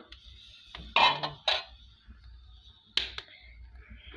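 Clinks and knocks of a steel saucepan and ladle being handled on a wood-fired stove: a few sharp strikes about a second in and another pair near three seconds, over a low steady rumble.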